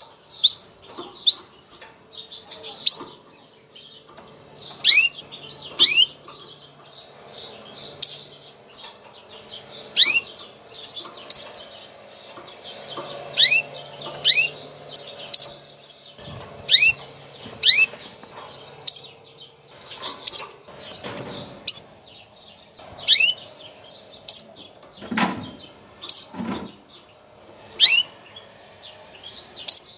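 Female canary giving its mating call: short, sharp chirps that sweep down in pitch, repeated about every second or two. This is the call of a hen in breeding condition, used to bring male canaries into breeding form. Two dull thumps come a little past the three-quarter mark.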